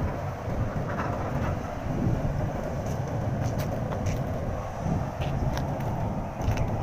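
Steady low rumble of road traffic, with a few faint sharp ticks in the middle.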